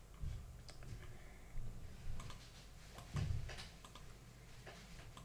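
Faint, scattered clicks of computer input, with a couple of soft low thumps, the stronger one about three seconds in.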